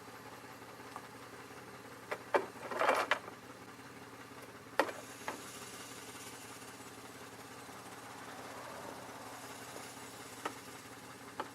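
2002 Chevy Malibu engine idling steadily, with a few sharp clicks and a brief clatter of handling noise over it, loudest about two to three seconds in.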